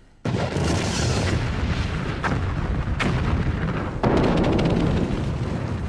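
Explosive rock blasting at a diamond mine: a sudden deep rumble that runs on loudly for several seconds, with a couple of sharp cracks in the middle.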